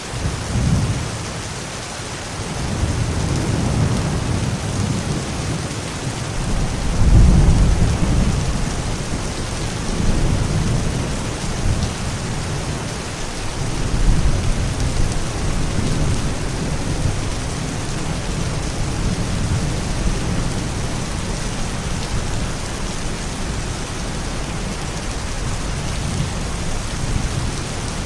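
Steady rain with rolling thunder: low rumbles swell and fade several times, the loudest peal about seven seconds in, then softer rolls under the rain.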